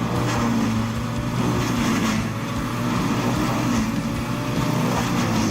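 A heavy diesel engine on a wood-processing machine runs steadily under load, with scattered short crackles over the hum.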